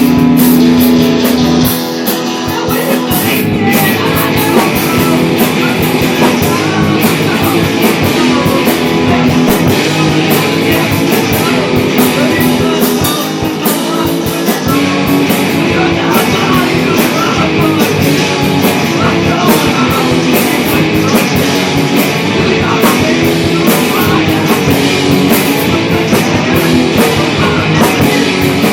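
Rock band playing a loud, driving song: guitars over a drum kit with rapid, steady cymbal and drum hits.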